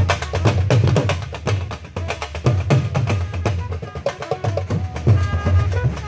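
Dhol drum played fast in a dense rhythm: rapid sharp stick strokes over deep bass beats.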